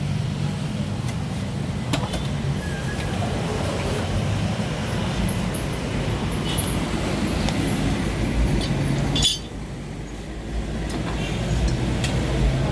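Motor vehicle engine running steadily, with a few light clinks. It drops off suddenly about nine seconds in and comes back up within a second or two.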